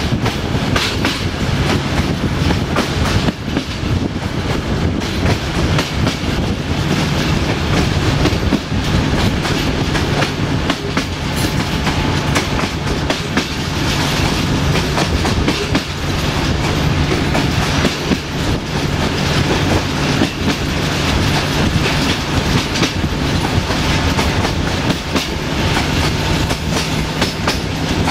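Passenger train running along jointed track, heard from an open coach window: wheels clicking over the rail joints over a steady rumble of the running gear, with the low hum of the LDH diesel-hydraulic locomotive's engine ahead.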